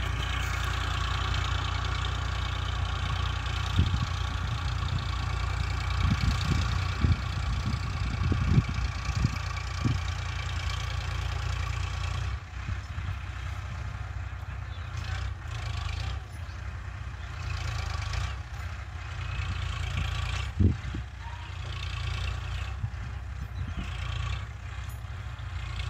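Eicher 557 tractor's diesel engine running steadily while pulling a soil leveller, heard from a distance as a low drone. A few brief dull thumps come through between about four and ten seconds in, and once more near the end.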